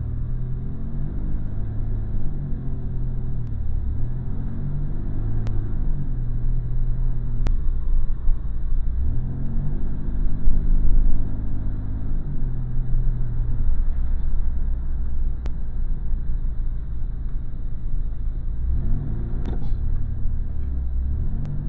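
A Pontiac car's engine running while driving, heard from inside the cabin with road rumble. The engine note rises and falls several times as the car speeds up and eases off.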